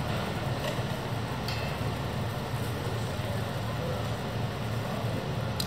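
Bus engine idling with a steady low hum, and a faint short click about a second and a half in and another near the end.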